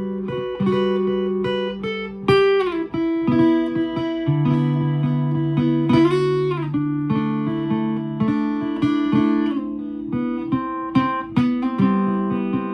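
Solo guitar playing a practice piece: plucked notes and chords ringing over one another, with a few notes sliding in pitch.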